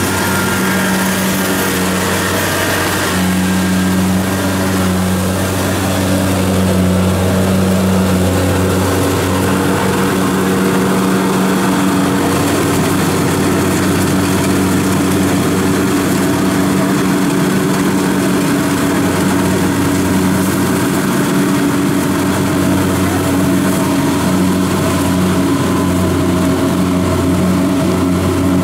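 Kubota DC-70 combine harvester's diesel engine running steadily under load as it works through a wet rice paddy, a constant even hum.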